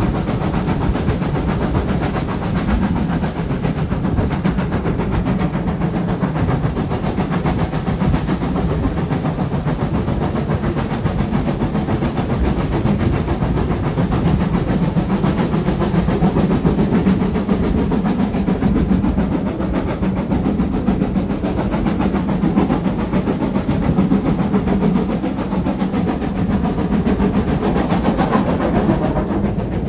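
Passenger coach running along the track, a steady rumble of wheels on rail mixed with rushing air at an open window. Near the end the sound briefly dulls as the coach passes under a stone overbridge.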